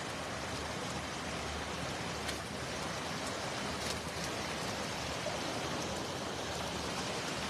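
Steady rush of flowing water, such as water running out below a dam, with a couple of faint clicks.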